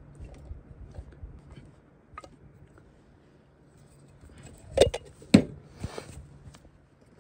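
Emptied food cans and cooking gear handled on a camp table: a few light taps, then two sharp knocks about five seconds in, followed by a short scrape.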